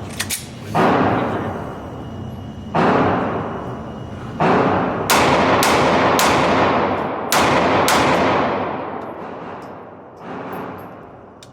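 Handgun fired seven times at uneven spacing, each shot followed by a long echoing ring-out; a fainter shot comes near the end.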